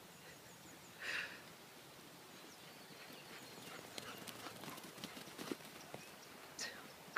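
Dogs romping: a quick patter of footfalls and claw clicks through the middle, with a short breathy huff about a second in and another near the end.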